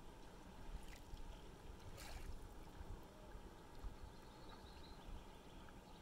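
Faint, gentle lapping of small waves on a calm sea, with a soft splash about two seconds in.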